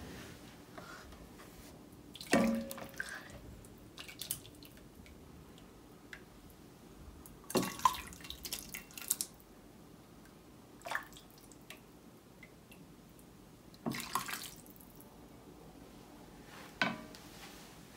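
Chicken barley soup being ladled from a pot into a bowl: about five separate short pours and splashes of liquid, a few seconds apart.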